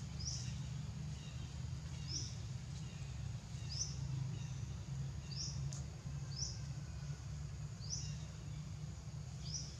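A bird repeating a short, high chirp about every second and a half, seven times, over a steady low rumble.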